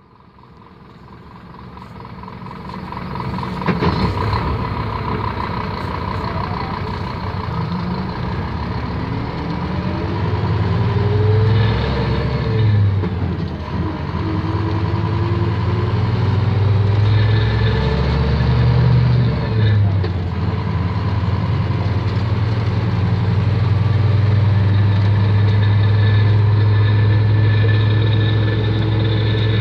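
Scania K310 coach's diesel engine pulling hard under full load, its note climbing and then dropping back briefly about twelve and twenty seconds in, as at gear changes, before running steadily loud. The sound fades in at the start, with a sharp knock about four seconds in.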